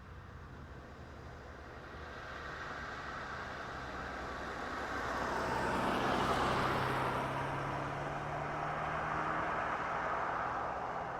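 A car driving past: its engine and tyre noise grow louder, peak about six seconds in, swell again briefly a few seconds later, and fade toward the end.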